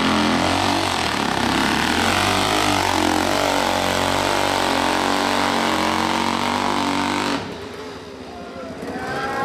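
Dirt bike engine at full throttle on a steep hill climb, revving hard with its pitch rising and falling as the rider works the throttle. About seven seconds in, the engine sound drops away suddenly, and voices follow.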